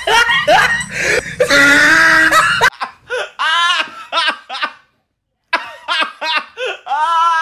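A woman laughing hard in repeated loud bursts of open-mouthed belly laughter, with a brief pause in the middle. It begins after an abrupt cut from a stretch of loud, rapid, pitched cries.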